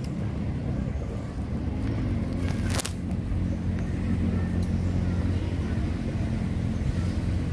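Steady low engine hum, like a motor vehicle running nearby, with one sharp click about three seconds in.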